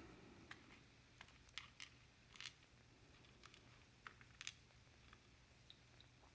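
Faint, scattered light clicks and taps of small metal lock parts being handled while a Lockwood MT5+ lock cylinder is taken apart, about a dozen over the stretch.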